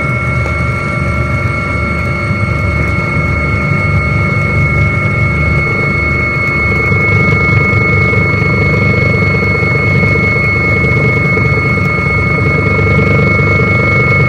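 Helicopter in flight: steady rotor and engine noise with a faint regular throb underneath and a constant high turbine whine above.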